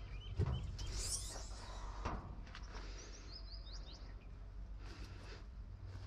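Small birds chirping in quick runs of short high notes over a low, steady background rumble, with a thump about half a second in and a few sharp clicks later.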